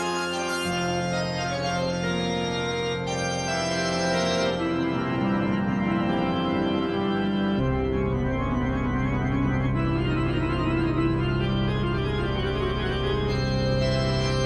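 Background soundtrack music of long held chords, with a deep bass note coming in about halfway.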